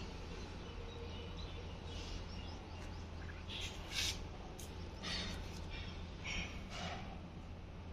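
Young blue Fischer's lovebirds giving a handful of short, raspy chirps, scattered and spaced apart, over a steady low background hum.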